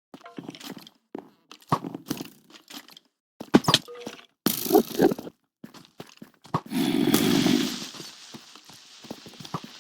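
Irregular cracks, knocks and crunching noises, then a loud, rough buzz lasting about a second near the middle that fades into a hiss.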